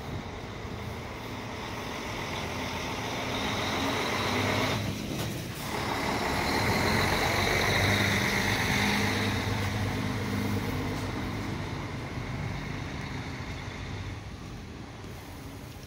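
Heavy truck engine running, a rumble that swells for several seconds to a peak about halfway through, then slowly fades.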